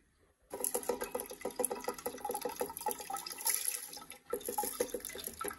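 Soaked moth beans poured from a steel bowl into water in a pressure cooker: a dense run of small splashes and pattering as the beans hit the water. It starts about half a second in and eases briefly near the end.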